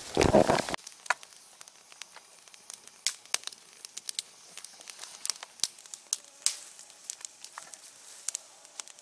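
Small fire of dry twigs crackling in a metal brazier, with scattered irregular pops and snaps over a faint hiss. A brief louder noise comes right at the start.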